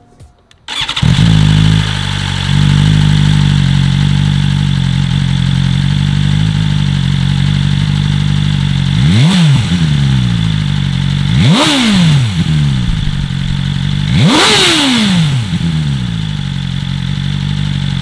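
2020 BMW S1000RR's inline-four engine, warm, on its stock exhaust: it starts about a second in and settles to a steady idle. It then takes three short throttle blips, each a quick rise and fall in pitch, the last revving highest.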